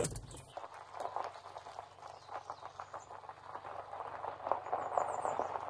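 Gravel crunching and popping under the tyres of a Toyota Tacoma pickup crawling slowly down a gravel road, in an irregular stream of small crackles.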